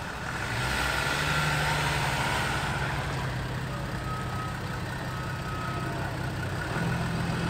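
Cars rolling slowly past one after another, engines running at low revs with a steady low note and tyre noise.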